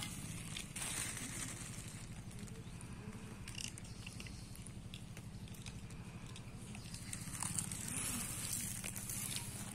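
Cat chewing and tearing at raw meat, with scattered short wet clicks of eating over a steady low hum.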